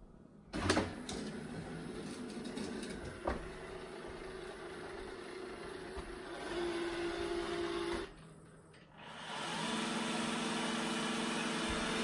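iRobot Roomba i7+ robot vacuum starting up, with a sudden loud sound about half a second in, then its suction fan, brushes and drive running steadily as it backs off its base and cleans a tile floor. The sound drops away briefly about two thirds of the way through and returns somewhat louder.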